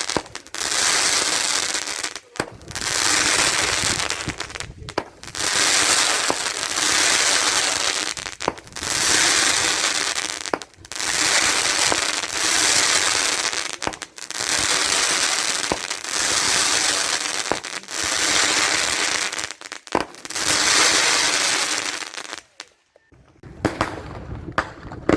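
A firework cake firing its shots one after another, each a loud hiss and crackle lasting a second or two, about ten in a row with a sharp crack near the end. The firing stops a few seconds before the end.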